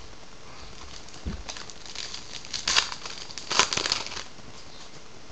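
Wrapper of a Topps Archives baseball card pack being torn open by hand: a stretch of rustling about two and a half seconds long, with two loudest tears near the middle.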